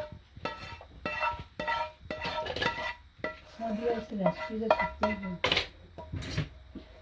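A metal spoon clinking and knocking against a metal pot again and again as butter chicken curry is served into it, each strike leaving a short ringing tone.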